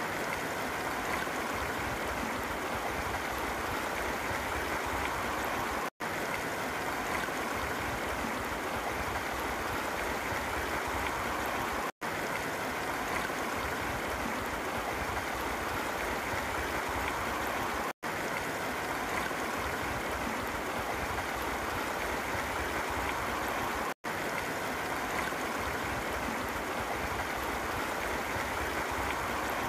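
Shallow creek rushing over and around rocks, churning where the fast, shallow flow breaks into a hydraulic jump below them. It is a steady, even rush of water, cut off for an instant every six seconds.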